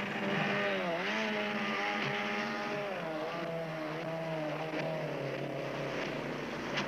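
Outboard motor of a small rubber boat running at speed, its pitch dipping and rising again several times as the throttle and load change.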